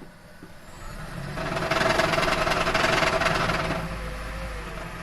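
Toyota Prius engine running with a rapid knocking rattle that builds up about a second in and is loud for about two seconds, then eases to a steadier hum with a faint wavering whine. The knock is unexplained; the owner asks what causes it.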